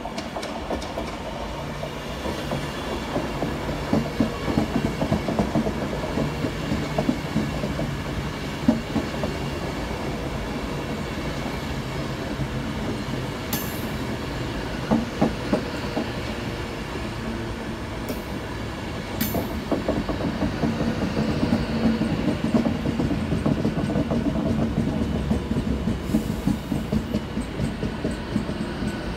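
Class 390 Pendolino electric train running past along the platform: steady wheel-on-rail noise with irregular knocks, and a few sharp high clicks about halfway through.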